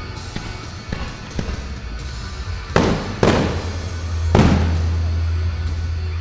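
Aerial firework shells bursting: a few lighter bangs in the first second and a half, then three loud bangs in quick succession about three to four and a half seconds in, each trailing off as it echoes.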